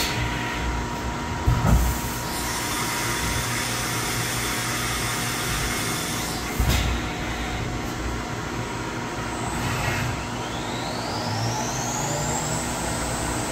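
Syil X7 CNC mill running a tool change: two clunks a few seconds apart over a steady hiss, then the spindle spinning up with a rising whine near the end.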